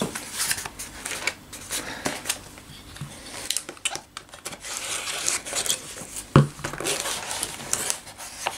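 Cardboard box being handled and its tape slit with a snap-off utility knife: scraping, rustling and light clicks, with one sharper knock about six seconds in.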